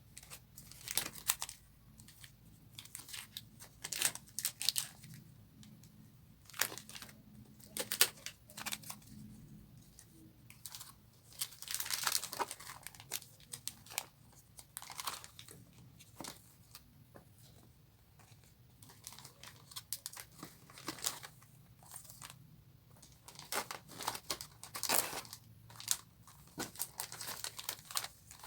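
Packaging being handled and opened by hand: irregular crinkling and rustling with tearing sounds.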